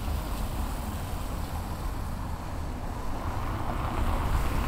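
Wind rumbling on a camcorder's built-in microphone, under a steady outdoor hiss that swells a little near the end.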